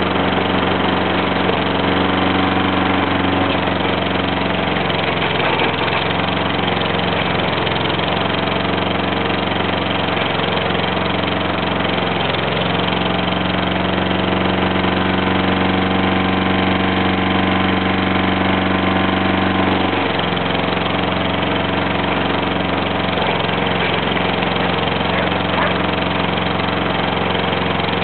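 Lawn mower engine running steadily, heard close up from the front of the mower as it cuts grass, its tone growing stronger for several seconds midway.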